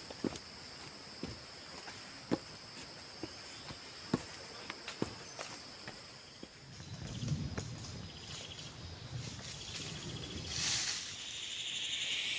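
Forest insects trilling steadily and high, with scattered light clicks and footsteps of people walking the trail. About two-thirds of the way through the trill stops and a low rustling follows, and near the end a louder, lower buzzing insect chorus starts.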